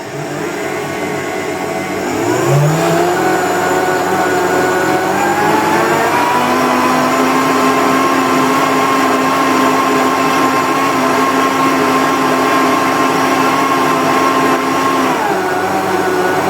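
Optimum 9200A high-speed blender running, milling two cups of oats into flour. Its motor whine climbs in pitch over the first few seconds, holds steady, then drops in pitch about 15 seconds in while it keeps running.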